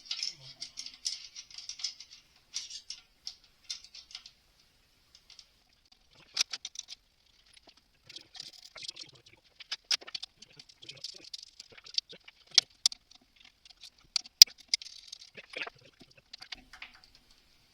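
Irregular clicking, clinking and rattling of hand tools and small engine parts being worked by hand during an engine strip-down, with a few sharper metallic clicks scattered through.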